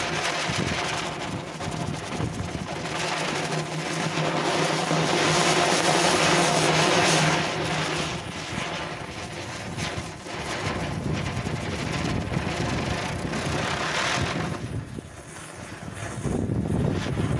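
Horizontal flower-pot (anar) fireworks spraying sparks with a continuous loud hiss, together with a line of matchsticks flaring as they catch. The hiss is loudest about five to seven seconds in, drops off near fifteen seconds, and picks up again near the end as another fountain flares.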